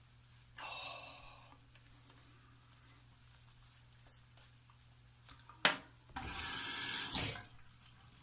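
Bathroom sink tap running briefly, with a short rush of noise about half a second in and a sharp knock just before the water comes on, about six seconds in.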